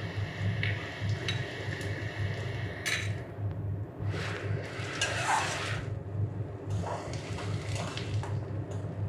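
Onions, ginger and garlic sizzling in hot mustard oil in a steel kadai, with a click about three seconds in. From about four seconds a metal spatula scrapes and stirs against the pan. A steady low hum runs underneath.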